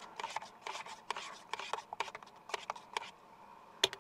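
A metal spoon stirring oatmeal in the steel cup of a Joulle Stoke Voltaics electric camp kettle, scraping the bottom and sides in quick repeated strokes. A sharp clink comes near the end as the spoon leaves the cup.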